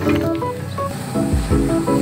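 Background music: a melody of short, stepping notes over a bass line.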